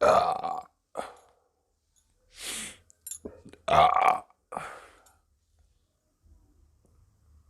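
A woman burping several times: a long loud burp at the start, a short one about a second later, and another loud burp followed by a weaker one about four seconds in, with a breathy exhale between.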